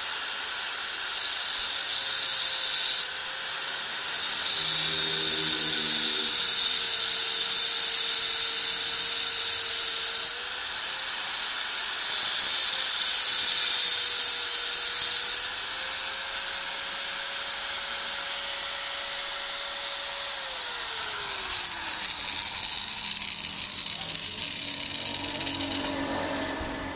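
Angle grinder running with a steady motor whine, its disc grinding a copper soldering-iron tip in three spells of loud, hissing contact, about two, six and three seconds long. About three quarters of the way through, the grinder is switched off and its whine falls as the disc spins down.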